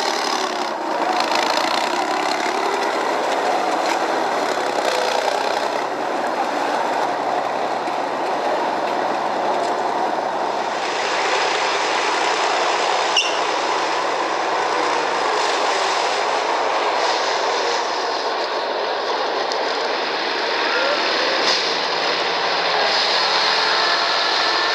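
BMP-1 tracked infantry fighting vehicle's diesel engine running under load, with the tracks running, as it drives through mud. The noise is steady throughout.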